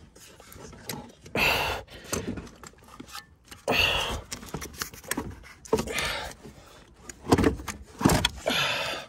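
A new 12V car battery being lowered into its tray in a Prius Prime: a series of about six knocks and scrapes from the battery case against the compartment, with quiet gaps between.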